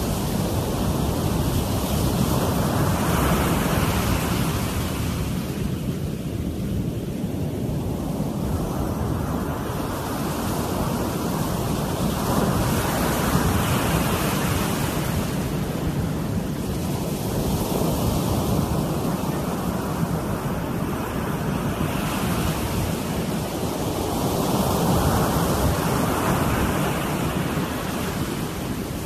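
Ocean surf breaking on a sandy beach: a steady wash of waves that swells and fades about every five seconds as each breaker rolls in.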